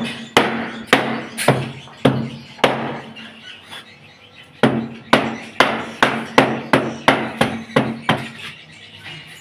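Repeated hammer blows on metal, each leaving a short low ring, roughly two a second, with a pause of over a second in the middle before a quicker run of blows.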